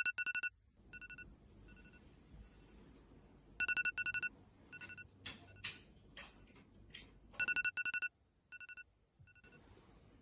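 Telephone ringing in a double-ring pattern, three times about every four seconds, each ring followed by fainter echoing repeats. Between the second and third rings there are short rustling and clicking sounds.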